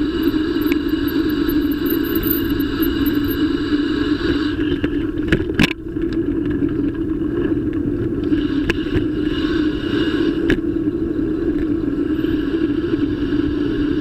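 Bicycle riding over pavement, heard through a bike-mounted camera: a loud, steady rolling and rattling noise from the mount shaking. There is a sharp clatter about five and a half seconds in, and lighter knocks near eight and ten seconds, as the bike goes over bumps.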